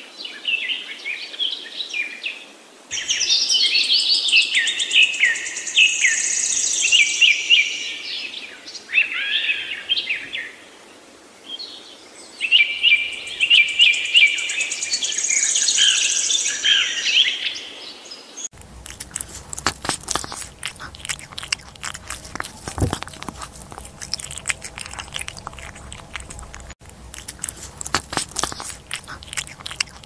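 High-pitched bird chirps and calls in several bursts, with a short lull in the middle. About eighteen seconds in, they give way abruptly to cats eating from bowls: a steady run of small chewing clicks and crunches.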